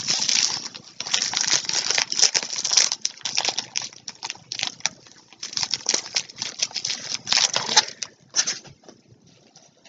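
Packaging being handled: dense rustling and crinkling, heavy for the first few seconds, then in scattered bursts that die down near the end.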